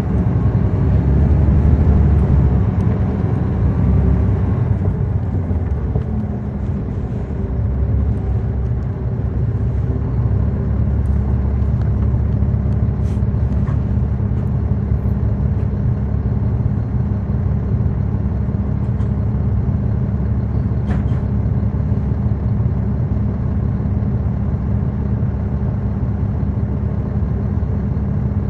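Caterpillar C13 diesel engine of a NABI 40-SFW transit bus, heard from the back seats inside the bus. It is louder for the first five seconds or so, then runs steadily with a low hum, with a few faint clicks.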